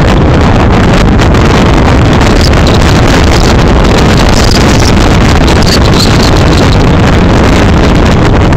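Strong storm wind blasting across a phone's microphone: a loud, steady rumble of wind noise that nearly overloads the recording.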